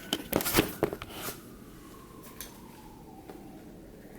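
A handheld camera being set down on a surface: a quick run of knocks and clatters over the first second or so, then quiet room tone.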